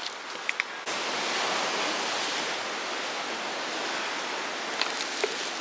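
Steady rushing of surf, growing louder about a second in, with a few light clicks.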